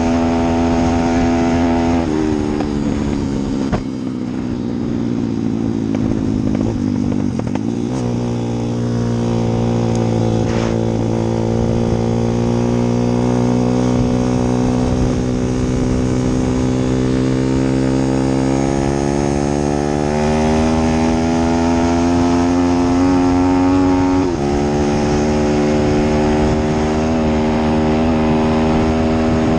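An engine running, its pitch dropping about two seconds in, climbing again around eight seconds, rising slowly later on and falling back suddenly near the end.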